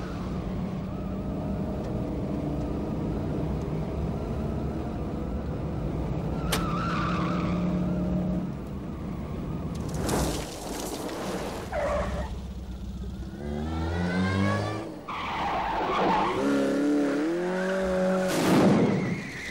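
Austin Rover Montego 1.6 saloons driven hard: engines running steadily at high revs, then tyres skidding and squealing about halfway through. The engines rev up in rising sweeps, and there is another tyre skid near the end.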